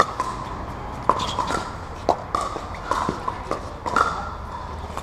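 Pickleball rally: paddles striking a hard plastic Dura 40 ball back and forth, a sharp pop every half-second to second.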